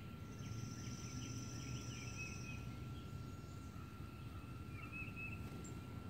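Songbirds calling: a high, rapid trill lasting about two seconds near the start, and a few short chirps, once again about five seconds in, over a steady low rumble.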